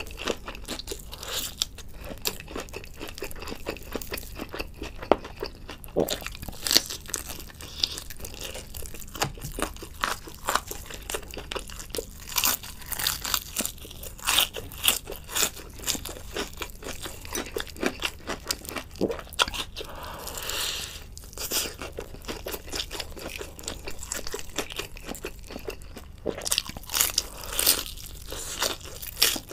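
Crispy fried chicken being bitten and chewed up close: the batter crunches and crackles with each bite, the louder snaps coming in clusters between stretches of chewing.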